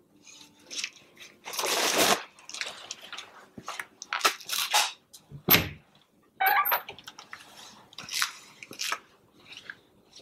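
Irregular rustling, scuffing and knocking of a person moving about a small room, with a longer rustle about one and a half seconds in and a sharp knock about five and a half seconds in.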